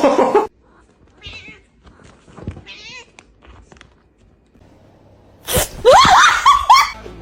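Cat meowing. A loud call cuts off right at the start, a few faint short sounds follow, then a run of loud, wavering yowls comes about five and a half seconds in.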